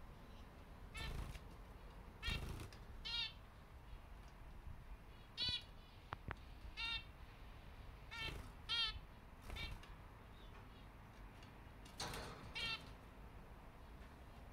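Zebra finches calling: about ten short, nasal, honking calls spaced irregularly, with a few soft rustles of feathers or nest material, the loudest about a second in, two seconds in and near the end.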